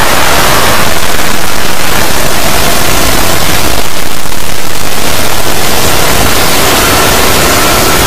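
Extremely loud, heavily distorted audio from a repeated noise-and-distortion edit ('earrape' effect). The original sound is buried under a steady hiss of static that covers every pitch.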